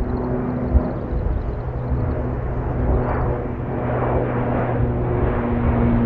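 ANA Bombardier Dash 8-400 (Q400) turboprop climbing out overhead after takeoff: a steady propeller drone with a low, even hum. Low thumps of wind buffet the microphone now and then.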